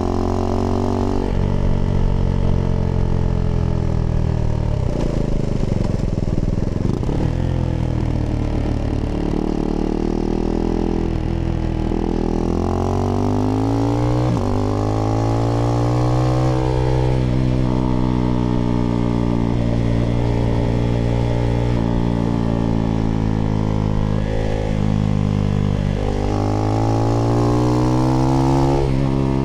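Husqvarna Svartpilen 401's single-cylinder engine running through an IxRace Mk.2 aftermarket exhaust with a modified dB killer while riding. The revs fall and dip around five seconds in, climb again from about twelve seconds, hold steady, and rise once more near the end.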